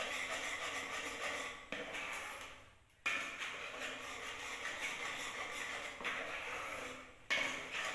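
Wire whisk beating pancake batter in a pot: a steady swishing and scraping that dies away about two seconds in, starts again a second later, and breaks off once more near the end.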